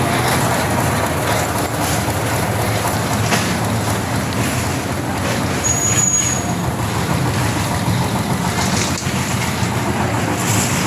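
An engine running steadily, with a short high-pitched whistle about six seconds in.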